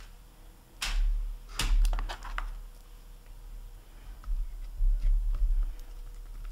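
A plastic slotted spoon clicking and tapping against a wire cooling rack and a glass bowl: a few sharp clicks in the first couple of seconds, then softer low thuds from about four seconds in as it scoops through melted chocolate.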